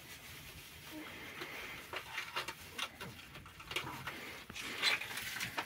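Scattered small clicks and crinkles of a medicine packet and thin plastic gloves being handled, coming more often from about two seconds in.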